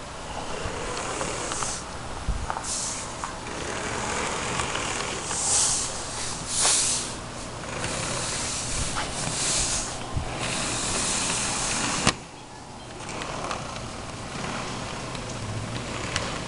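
HO scale Tyco Burlington diesel locomotive running around its track, its small electric motor whirring with the cars rattling along the rails, and several louder bursts of hiss in the middle; the sound drops quieter about twelve seconds in. The owner thinks the locomotive's motor may need a little work.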